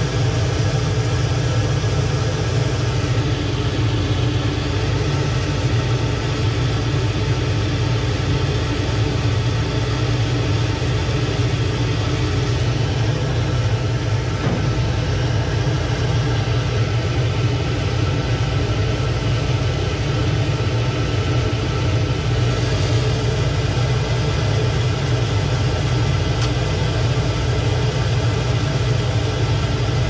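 Lochinvar boiler's combustion blower running with a steady low hum as the unit runs through its start-up sequence toward ignition.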